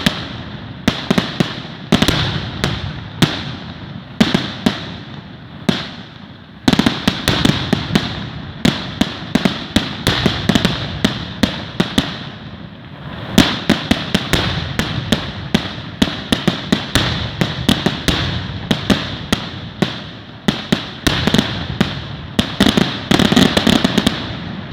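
Fireworks going off in a rapid, dense barrage of sharp bangs and crackles. The barrage eases briefly about six and twelve seconds in, then picks up again.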